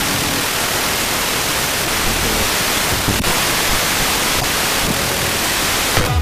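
Loud, steady FM receiver hiss from a software-defined radio demodulating wideband FM between and over weak stations in the 88 MHz band, with a few faint clicks as it is retuned. The uploader blames the raised noise on local interference from cheap battery chargers and LED strips.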